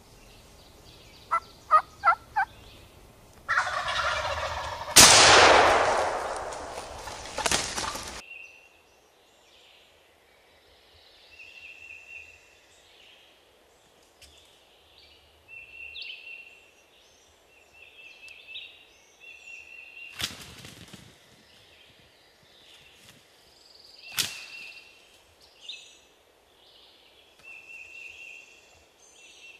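A turkey gobbling: one quick rattling gobble of four pulses about a second and a half in. It is followed by a loud burst of noise that peaks suddenly, dies away over about three seconds and cuts off. After that come quieter short high tones and two sharp clicks.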